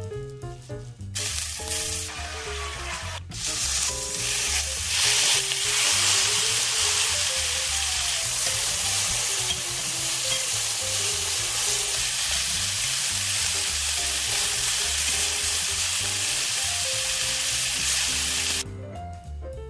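Beef and vegetable kebabs sizzling loudly as they sear in a hot cast-iron skillet. The sizzle starts about a second in and stops shortly before the end, under upbeat background music.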